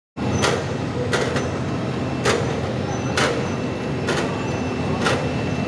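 Lemon sorting and washing line running with a steady mechanical hum, punctuated by sharp knocks roughly once a second.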